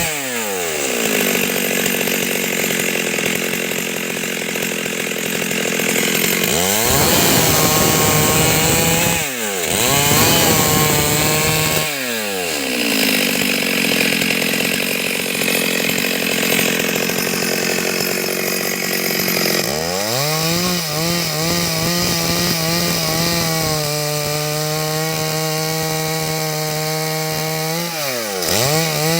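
Stihl MS 382 two-stroke chainsaw cutting wood: the engine note drops sharply each time the chain is pressed into the cut and climbs back up as the load eases, repeating several times.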